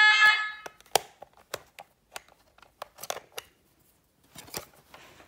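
A fire alarm sounder's steady tone cuts off about half a second in as the manual call point is reset with its key, a quarter turn, followed by a series of small plastic clicks and knocks from handling the call point and key.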